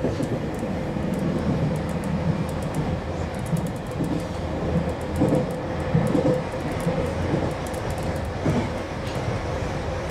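JR Kyushu 303 series electric multiple unit running along the line, heard from inside the driver's cab: a steady rolling noise of wheels on rail with a steady hum running through it, swelling into a few louder rumbles around the middle.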